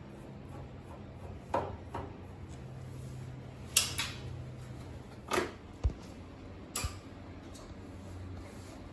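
Scattered sharp clicks and clanks of metal gas-range parts being handled and taken apart, about seven in all, over a low steady hum.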